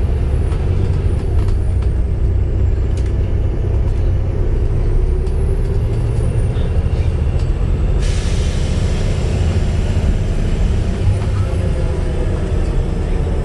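Volvo B7TL double-decker bus driving, a steady low engine and drivetrain rumble with a drone that the uploader puts down to a bad axle. About eight seconds in a long hiss of air from the bus's air system starts and runs for several seconds.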